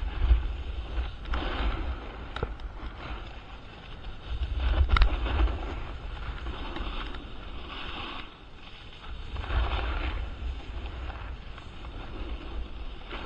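Wind rushing over the microphone and edges scraping across groomed snow during a downhill run, swelling and easing in waves every few seconds, with a few short clicks.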